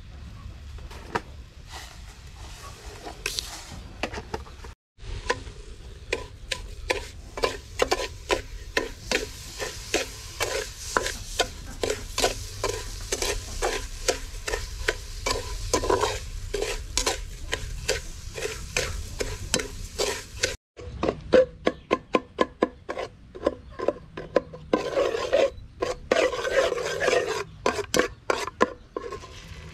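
Metal spatula scraping and knocking against the bottom of an aluminium pot in quick, repeated strokes, stirring sugar over the fire as it melts into caramel. A short stretch of sizzling comes in near the end.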